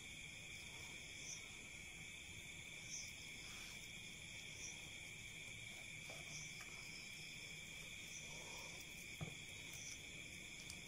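Faint, steady chirring of crickets, with a few soft clicks and rustles as string is tied around a soil-filled plastic air-layer wrap.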